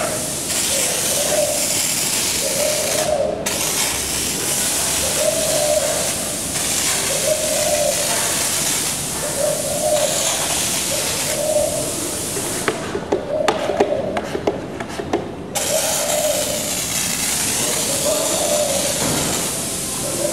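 Gloria Pro 5 hand-pumped pressure sprayer hissing steadily as it sprays a liquid onto a concrete-caked metal box. The spray breaks off briefly about three seconds in, then stops for about three seconds in the middle, where a few clicks are heard, before it resumes. A lower tone swells and fades about every two seconds underneath.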